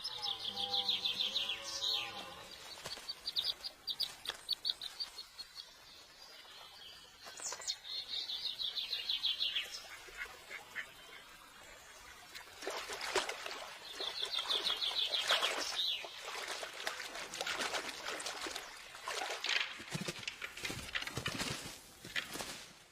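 Songbirds singing in a summer broadleaf forest: several fast, high trills, a lower call near the start, and a busy run of short chirps and calls from about halfway through.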